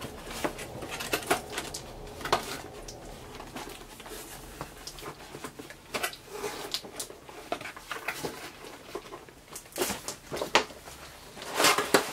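Cardboard toy packaging and its plastic wrapping being handled: scattered rustles, taps and small knocks as the boxed action figure is turned over, with a louder burst of handling near the end as it is set down among cardboard.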